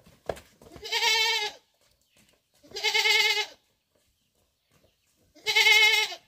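A goat bleating three times, a couple of seconds apart, each call under a second long with a wavering, quavering pitch.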